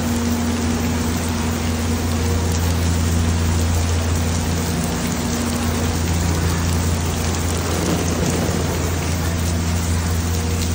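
Steady rain falling on an umbrella held overhead, over a low steady hum.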